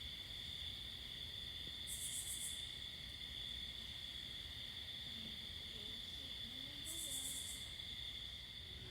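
Steady chorus of crickets or other night insects, a continuous high-pitched trill, faint. Two short, higher buzzes stand out about two seconds in and again about seven seconds in, and faint low calls come near the middle.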